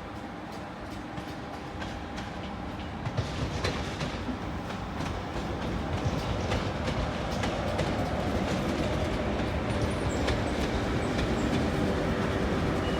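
A train moving slowly along the station tracks, its wheels clattering over rail joints and points, growing steadily louder as it approaches, with a few faint short high wheel squeaks about ten seconds in.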